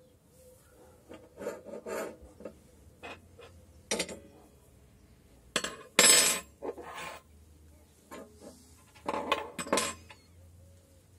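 Metal parts of an angle grinder stand being handled and adjusted by gloved hands: scattered clinks, taps and short rubbing scrapes of steel on steel. The loudest is a longer scrape about six seconds in.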